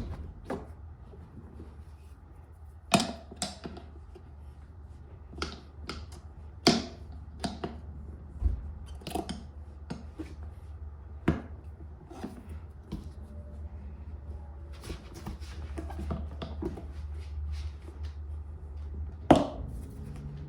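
Irregular sharp clicks and knocks of hand tools and metal parts being handled, one to two seconds apart, over a steady low hum.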